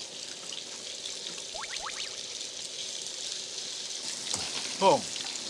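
Beef sirloin sizzling steadily on a grill plate over a portable gas burner.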